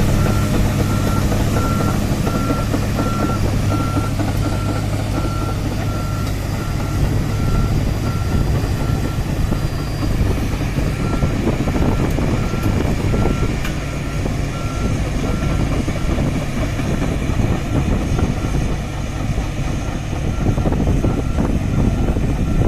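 Excavator's travel alarm beeping at an even rate, a little more than once a second, over the steady running of its diesel engine.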